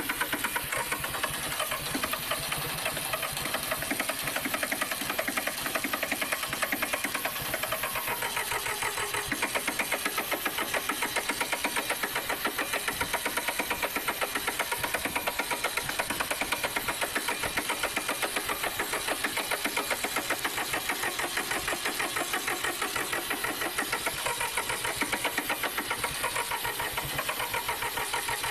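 The Massey Ferguson 1010 tractor's diesel engine cranking over on its starter motor with an even beat of about five compression strokes a second, held for a long crank without the engine picking up speed. The engine is hard to start: it is being helped with ether and a jump box.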